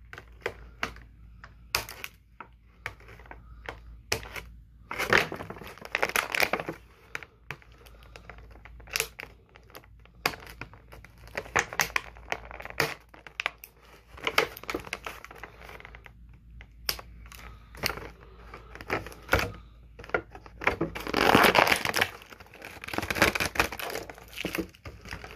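Plastic packaging crinkling and rustling in irregular bursts, with scattered sharp clicks, as the twist ties holding an action figure in its plastic tray are cut and the figure is worked free.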